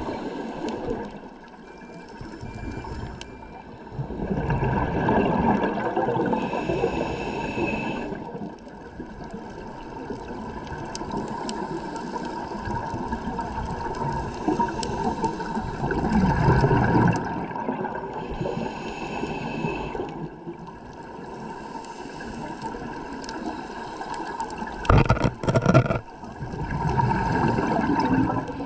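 Scuba regulator breathing heard underwater: exhaled bubbles rush and gurgle in louder swells every ten seconds or so over a steady watery hiss. A few sharp knocks come near the end.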